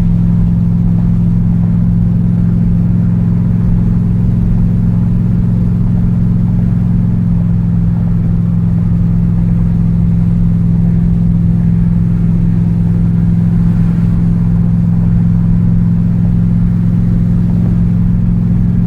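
1970 Chevelle's 800 hp engine running at a steady speed, a loud deep drone that holds even with no revving.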